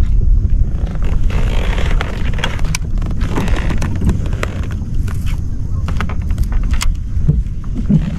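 Wind buffeting the microphone on a fishing kayak as a loud, uneven low rumble, with scattered sharp clicks and knocks.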